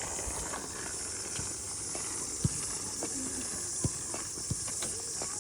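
Steady high-pitched hiss, with three short low thumps in the second half.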